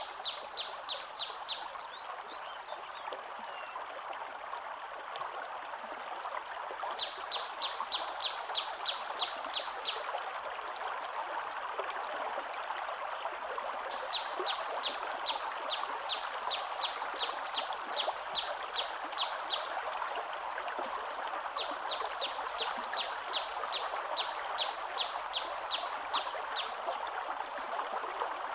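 Steady rushing of flowing water with runs of rapid, evenly spaced chirps, about six a second, that stop and start.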